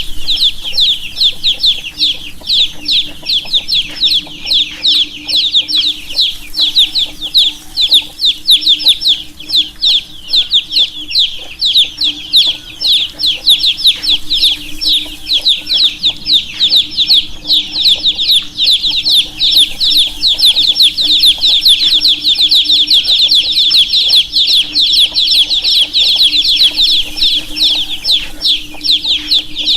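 A group of baby chicks peeping without a break: many short, high, overlapping cheeps every second. A steady low hum runs underneath.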